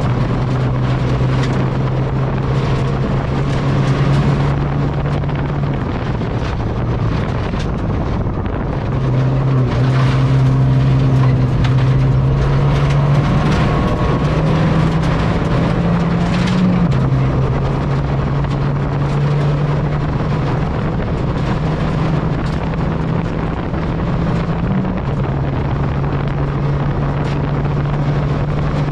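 Ford Fiesta ST rally car engine, heard from inside the cabin, running hard on a gravel stage. The engine eases off for a few seconds, then picks up again with stepped pitch changes and an upshift partway through. Gravel clatters against the underside throughout.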